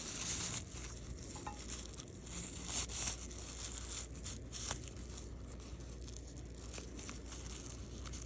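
A plastic strip crinkling and rustling as it is handled and pulled through the loops of a woven basket's rim, in several bursts that are strongest in the first three seconds and fainter after. A steady low hum sits underneath.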